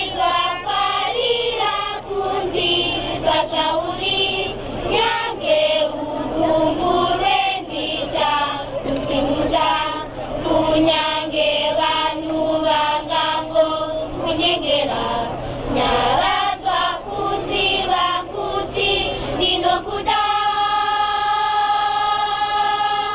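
Children's choir singing together. About 20 seconds in, the choir settles onto one long held note.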